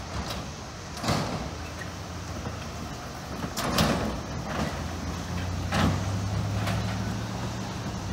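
Road vehicles crossing railroad tracks at a grade crossing: a pickup truck towing a trailer, then cars, roll over the rails, with a few sharp thumps and rattles as the wheels cross. A low engine hum comes in about halfway through.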